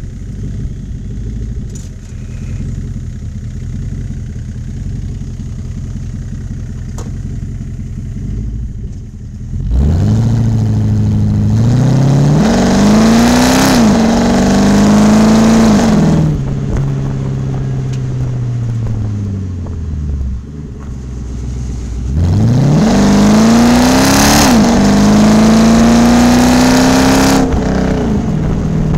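Porsche 928 S4's 5.0-litre V8 through a stainless steel sports exhaust, running low and steady for about nine seconds. It then accelerates twice, each time rising in pitch through a gear change before the revs fall away as it eases off.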